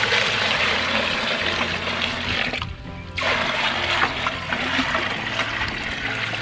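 Rainwater poured from a full 5-gallon plastic bucket into a second plastic bucket: a heavy, splashing pour that breaks off briefly about three seconds in, then resumes.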